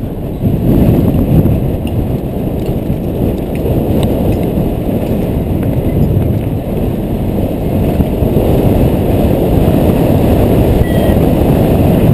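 Wind buffeting a helmet-mounted action camera's microphone, mixed with the rumble of a downhill mountain bike's knobby tyres rolling over a dirt track. The rumble runs continuously, with a little dip in loudness just after the start.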